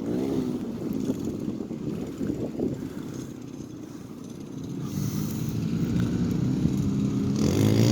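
Dirt bike engine revving up and down, dropping away around the middle and then growing louder over the last few seconds.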